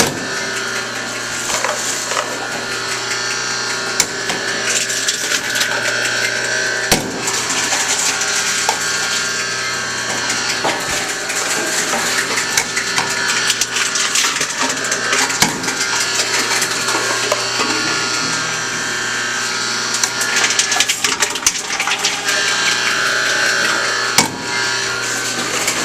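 Envipco FLEX reverse vending machine running with a steady hum while its crusher crackles and clatters, compacting returned plastic bottles and cans.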